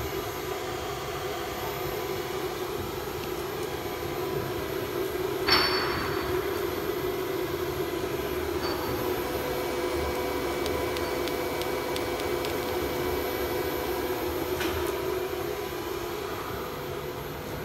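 A 4-axis CNC router running steadily, its spindle and long bit carving a turning foam cylinder. A single sharp clank with a brief ring comes about five and a half seconds in.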